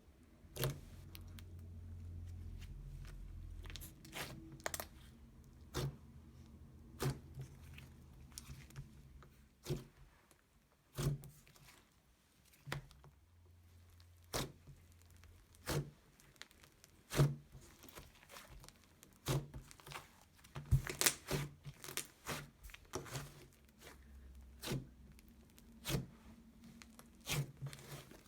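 Slime being stretched, squeezed and poked by hand, giving a series of sharp sticky pops and clicks, roughly one a second with a quick cluster about two-thirds of the way through.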